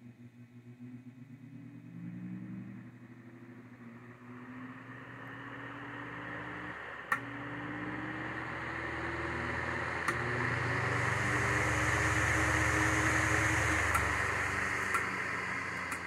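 Antique Emerson electric fan running up to speed: a low motor hum with a whine that slowly rises in pitch, and the rush of air from the blades growing steadily louder, then fading near the end. A few sharp clicks come along the way.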